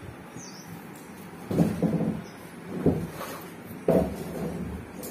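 Several short, sudden bursts of knocking and grinding noise from work on a hollow plastic water tank, each lasting half a second to a second.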